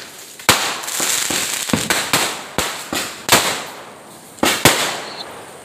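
Aerial fireworks going off in quick succession: about ten sharp bangs, each trailing off into a hiss, then a quieter stretch after the last pair near the end.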